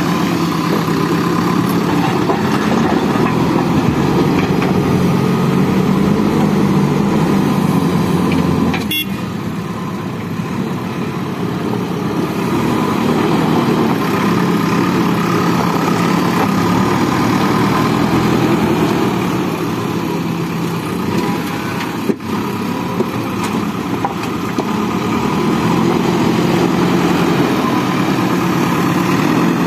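Diesel engine of a JCB backhoe loader running steadily under load while it digs and loads. Its level drops for a few seconds about a third of the way in and eases again past two-thirds, with a sharp click at each change.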